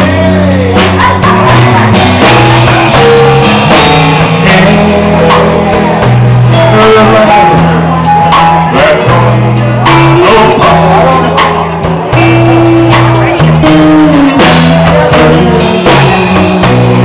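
Live country band playing a slow ballad on electric guitar, bass, drums and keyboard, with a lead line that slides between long held notes.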